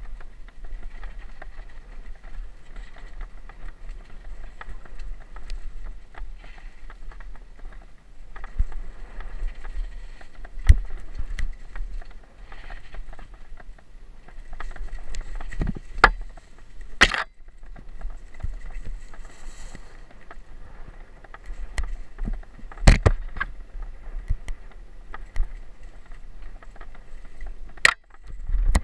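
Mountain bike riding fast down a rough dirt trail: a continuous rumble and rattle of tyres and bike with wind buffeting, broken by several sharp knocks as it hits bumps, the loudest about halfway through.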